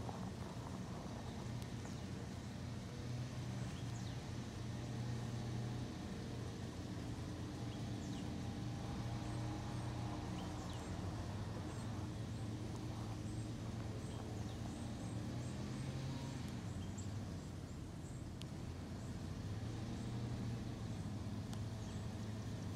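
A steady low mechanical drone, like a distant engine, wavering slightly in strength, with faint short high chirps scattered over it.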